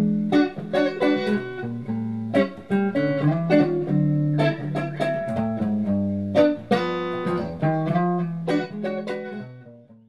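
Guitar music: a run of plucked notes over a low bass line, fading out near the end.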